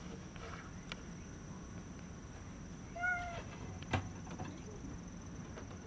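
A cat gives one short meow about three seconds in. A sharp click follows just under a second later.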